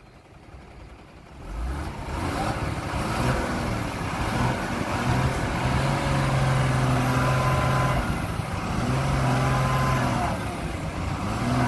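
Heavy diesel engine revving up about two seconds in, then holding a steady high drone that eases off briefly a couple of times.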